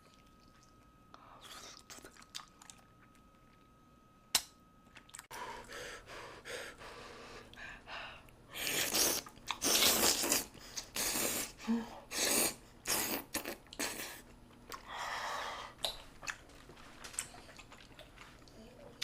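Close-miked chewing and crunching of food. It is quiet at first, then a run of loud, crunchy bites and chews comes from about eight to fourteen seconds in, with more chewing after.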